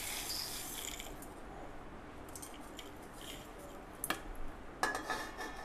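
Dry roasted whole spices (chana dal, dried red chillies, bay leaves) sliding and rattling off a steel plate into a steel mixer-grinder jar. There is a sharp click about four seconds in and a short rustle near the end.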